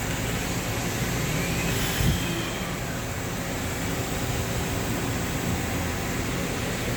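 Steady machine-shop background noise, an even hiss over a low hum, with a single thump about two seconds in.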